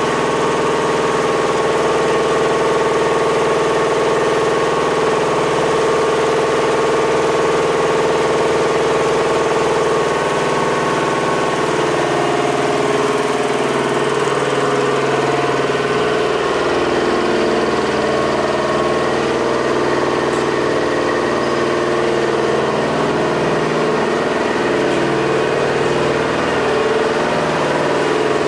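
Munitions lift truck's engine idling steadily. From about ten seconds in, its note shifts and wavers, as if the engine speed varies.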